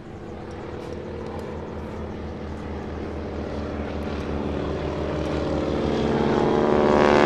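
Boeing Stearman biplane's radial engine and propeller droning steadily, growing louder throughout as the aircraft approaches.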